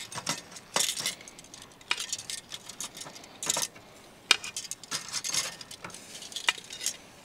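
Metal tongs clinking and tapping against a wire grill rack and a ceramic plate as grilled fish pieces are lifted off and set down: a series of irregular sharp clinks.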